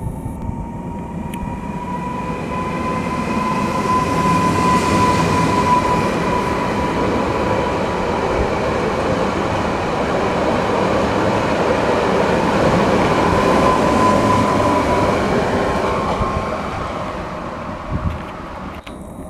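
Newag 45WE Impuls electric multiple unit accelerating away and passing close by. A steady whine from its traction drive rises slightly in pitch over the first few seconds. Under it, wheel-and-rail rumble swells as the train passes and fades as it draws away near the end.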